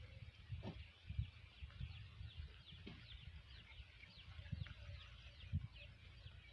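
Faint, rapid series of short, high, downward chirps from small birds, about three a second, over irregular low thumps.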